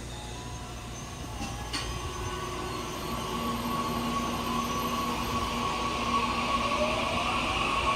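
Taiwan Railway EMU800 electric multiple unit pulling out of the station. Its inverter-driven traction motors whine in steady tones, with one tone rising in pitch near the end as the train gathers speed, over wheel and rail noise that grows louder. A single sharp click sounds about two seconds in.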